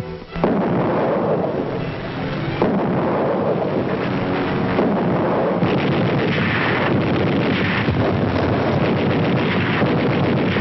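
A warship's anti-aircraft batteries firing during an air attack: a dense, continuous clatter of gunfire with sharp louder reports about half a second in and again about two and a half seconds in. It is heard on an old film soundtrack with the top end cut off.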